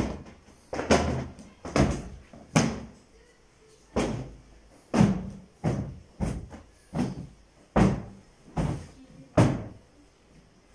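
Upholstered sofa seats being beaten with a cloth to knock the dust out: a dozen dull thumps, roughly one a second, that stop near the end.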